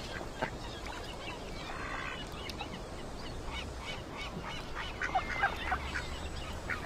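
Birds calling in short, scattered calls of several pitches, with a steady low hum beneath.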